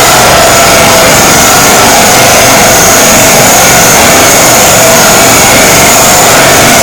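Animal stampede sound effect: a loud, dense, unbroken rumble of many running animals, steady throughout with no breaks.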